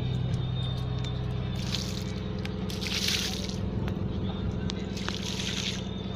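Fishing boat's engine running steadily, with three short splashes of water over it.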